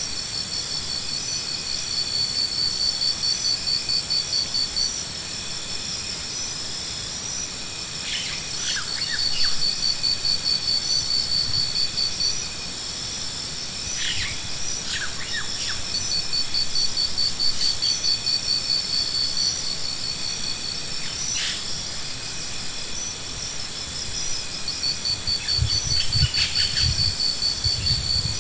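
Insects chirping in long runs of fast, high pulses that stop and start every few seconds, over a steady high-pitched drone. A few short sharp sounds break in now and then, and there are some low thumps near the end.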